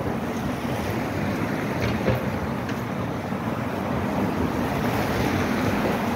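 Steady city street noise: traffic and tyres on a wet road, with some wind on the microphone. A brief knock about two seconds in.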